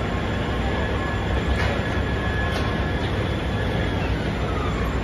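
Crane engine running steadily while the hook holds a slung load of stacked form frames, with a thin steady whine above the engine and a faint whine falling in pitch near the end.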